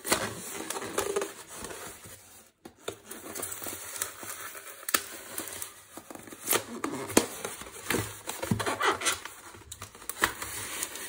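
A folding pocket knife cutting along the taped seam of a polystyrene foam box: irregular scraping and crackling of blade on tape and foam, with a few sharp clicks.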